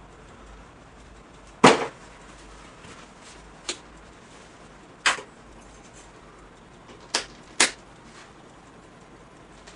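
Sharp knocks and clacks of painting tools being handled at an easel. Five irregular hits: the loudest about a second and a half in, and two close together near the end.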